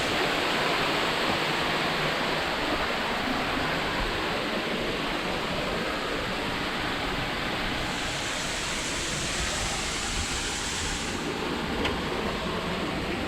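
Waterfall in heavy flow: a steady rush of falling water, with a higher hiss that brightens for about three seconds past the middle.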